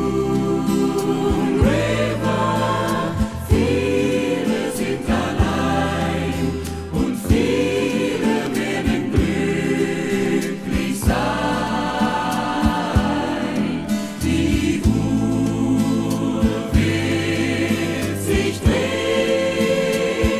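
Easy-listening orchestra with a choir singing sustained chords over a steady beat.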